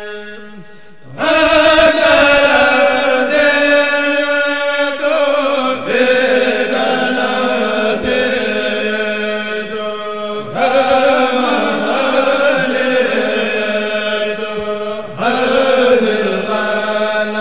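A Mouride kourel, a group of men chanting a khassida together into microphones, without instruments. The chant comes in long phrases of about five seconds each, with a brief break between them and a steady low tone underneath.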